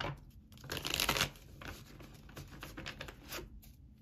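A deck of tarot cards being shuffled by hand: a dense rustling burst about a second in, then lighter scattered clicks of cards being handled.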